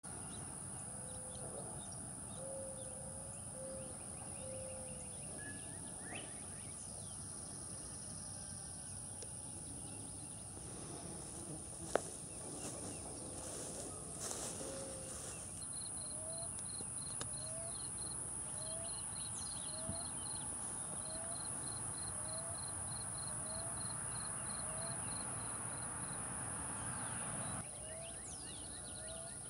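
Rural outdoor ambience: a steady high-pitched insect drone, with a bird repeating a short rising call about once a second through the second half. There is a single sharp click near the middle.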